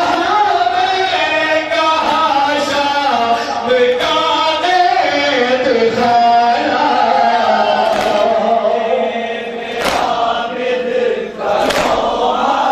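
Male voices chanting a noha, a Shia mourning lament, together in a steady sung line. In the second half, a few sharp hand-on-chest slaps of matam land about two seconds apart.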